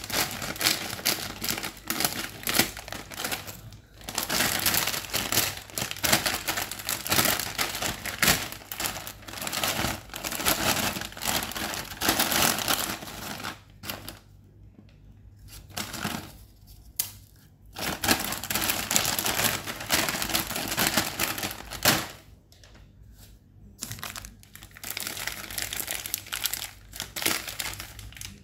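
Plastic snack packet crinkling and crackling as hands squeeze and open a bag of Uncle Chipps potato chips, with several short pauses. Near the end a plastic-wrapped biscuit pack crinkles.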